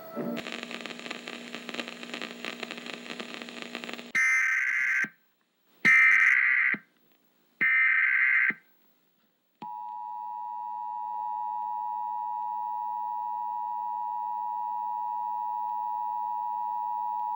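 Emergency Alert System broadcast signal: about four seconds of hissing static with a low hum, then three short bursts of the digital header tones about a second apart, then the steady two-tone attention signal sounding from about ten seconds in.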